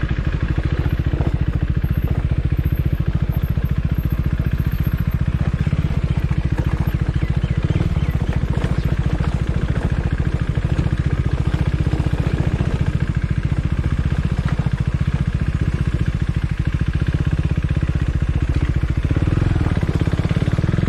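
KTM Duke motorcycle's single-cylinder engine running at low revs as the bike climbs a dirt track slowly, a steady fast pulse of engine firing, a little louder briefly near the end.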